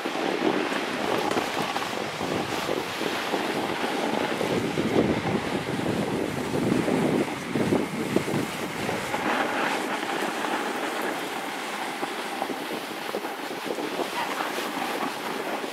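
Wind rushing over the microphone together with the scraping hiss of a board sliding over packed, groomed snow, swelling and easing unevenly as the run goes on.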